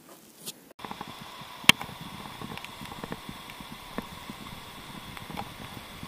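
Handling noise from a handheld camera on the move: scattered clicks and rustles, with one sharp knock under two seconds in. A steady high two-note hum runs beneath it, and the sound changes abruptly under a second in.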